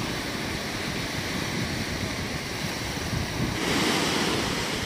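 Surf breaking and washing onto a beach, with wind buffeting the microphone. A wave breaks louder about three and a half seconds in.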